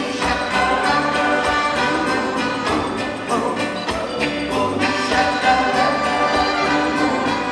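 Live band music with a horn section of saxophones and trumpet playing sustained lines over electric guitar.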